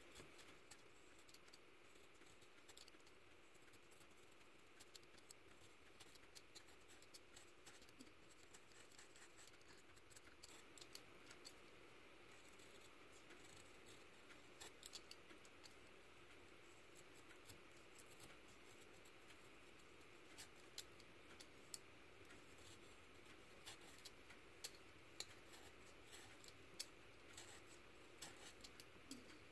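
Snap-off utility knife blade shaving wood and graphite from a pencil tip: faint, irregular scraping clicks of the cuts, coming thicker in the second half.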